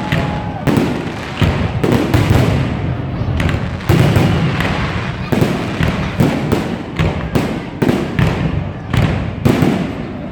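Fireworks display: a rapid run of shells bursting in deep booms and sharp bangs, about two a second, over a continuous rumble of echoing explosions.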